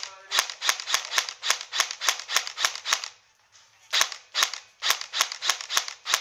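Airsoft rifle firing rapid semi-automatic shots, about three sharp cracks a second, with a pause of about a second midway before the firing resumes.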